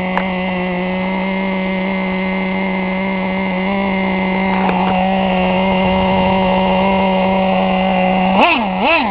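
Small .15 nitro glow engine of a Team Associated RC10GT RC truck running at a steady high pitch. Near the end it twice drops sharply in pitch and picks straight back up.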